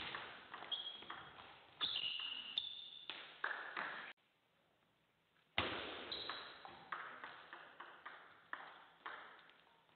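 Table tennis ball clicking off the bats and bouncing on the table in a sharp, uneven series of light hits with a short ring after each. The sound cuts out suddenly for about a second and a half near the middle, then the hits start again and die away.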